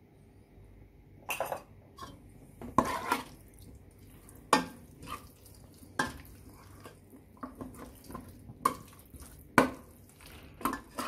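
A metal spoon stirring and turning marinated chicken wings in a pot. It knocks and scrapes against the pot in irregular clinks, about one a second, starting a second or so in.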